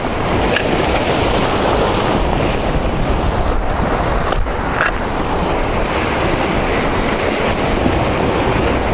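Waves washing onto the jetty with wind buffeting the microphone: a steady, even rush.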